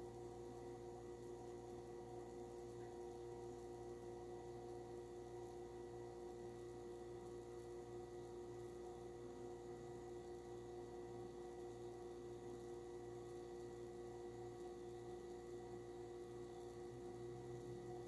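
Oven running with a dish baking inside: a faint, steady hum with several held tones and no change throughout.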